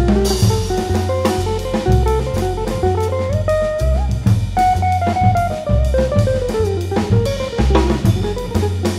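Contemporary jazz guitar trio playing: electric guitar, double bass and drum kit. The guitar line glides up and then slowly back down over the middle of the passage, over a walking low bass and busy drumming with snare and bass-drum hits and a cymbal crash near the start.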